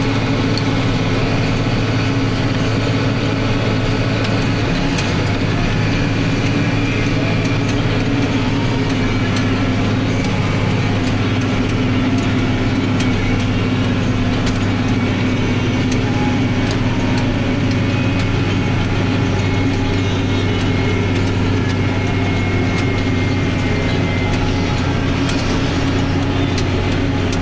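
Massey Ferguson 8280 Xtra tractor's diesel engine running steadily at about 2000 rpm under field load, heard from inside the cab as an even drone. Faint clicks and rattles sound now and then.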